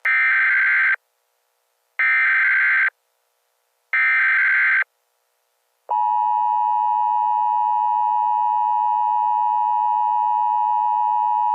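Emergency Alert System SAME header: three bursts of screeching digital data, each about a second long and a second apart. About six seconds in, the steady two-tone EAS attention signal starts and holds on one pitch, marking the start of an alert.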